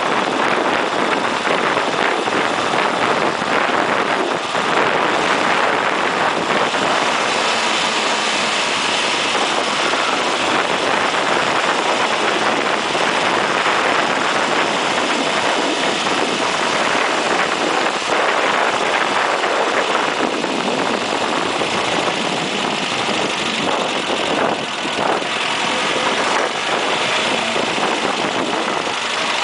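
Onboard sound of a 1980 Ford Fiesta SuperSport driving a circuit lap: the engine running steadily, largely covered by loud wind and road rush on the low-mounted microphone.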